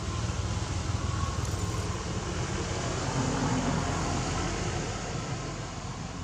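Steady low rumbling background noise, with a faint pitched hum that swells about three seconds in.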